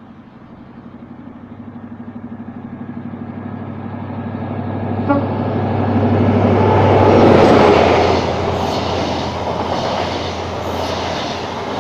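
An HST (InterCity 125) with Class 43 diesel power cars passing through at speed. The lead power car's engine hum grows louder and peaks about seven seconds in. The coaches follow with a steady rumble and a regular clickety-clack of wheels over the rail joints.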